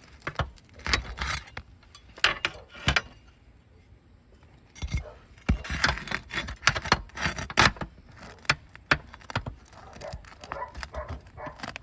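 Steel flat pry bar scraping and clicking against asphalt roof shingles as a roofing nail is pried out, in irregular short strokes with a brief lull partway through.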